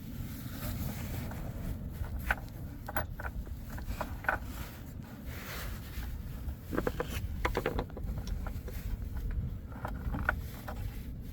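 Irregular metallic clicks and scrapes of a 1/4-inch ratchet and extension working a 13 mm battery hold-down bolt loose, over a steady low rumble.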